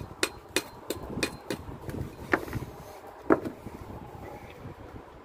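Hand tool tapping a brick to trim it to size: a quick run of sharp taps, about three a second, for the first second and a half. Then two louder single strikes, a little after two and three seconds in. Wind on the microphone.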